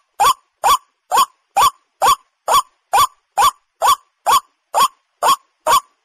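White-breasted waterhen (suara) call used as a hunting lure: a short, rising croaking note repeated at a perfectly even pace, about two notes a second.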